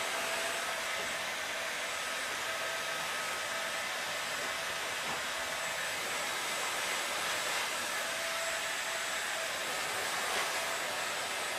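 Electric heat gun blowing hot air: a steady rushing hiss with a faint whine. It is softening a carbon-fibre composite sheet being laid over a plaster mold.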